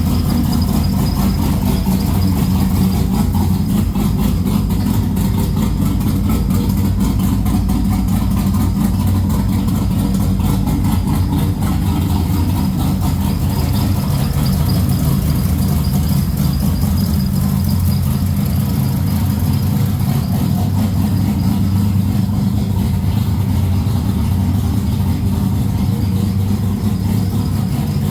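Turbocharged Ecotec V6 engine idling steadily, with a faint high whine over it.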